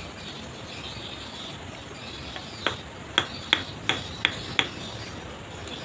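A hand tool tapping a river stone to seat it into wet mortar: six sharp taps, about three a second, starting a little over two and a half seconds in.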